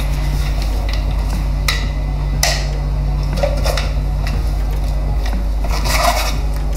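The clear plastic dust bin of a Dyson V8 vacuum is handled and wiped with a wet cloth, giving a few short plastic knocks and rubbing scrapes, bunched together about six seconds in. A steady low hum runs underneath.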